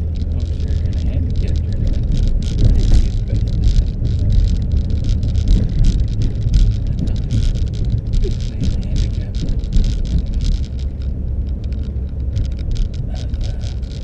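Car on the move: a steady low rumble of engine and road noise, with crackling noise on top.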